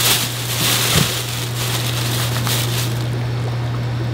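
Plastic fish-shipping bags and packing rustling and crinkling as they are handled, dying away about three seconds in. A steady low hum runs underneath.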